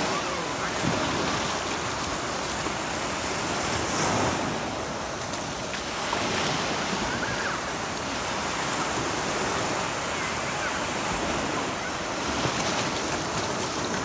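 Sea waves breaking and washing up the beach, swelling every few seconds, with some wind on the microphone.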